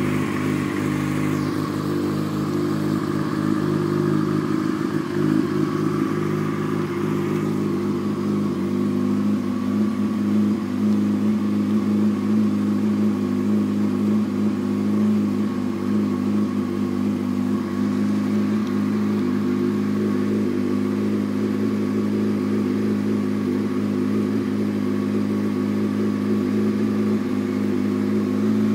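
2001 Yamaha YZF-R6's inline-four engine idling steadily through a Two Brothers full aftermarket exhaust.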